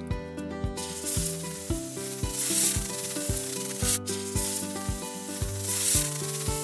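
Cobra hissing: a long breathy hiss that starts about a second in, swells twice and breaks off for an instant about four seconds in. Background music with a steady beat runs beneath it.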